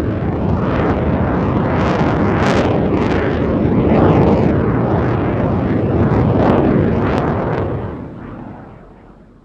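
Loud jet aircraft noise: a dense rushing rumble that swells and eases every second or so, fading away near the end.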